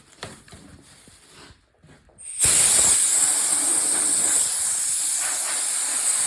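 Compressed air blowing sanding dust off a sanded polycarbonate headlight lens: after a few faint handling clicks, the air starts suddenly with a loud steady hiss about two and a half seconds in and keeps blowing.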